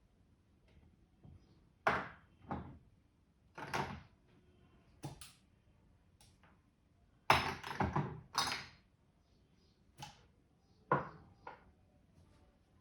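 Irregular slaps and pats of hands during a head and upper-body massage: about a dozen sharp strikes, with a quick run of several a little past the middle.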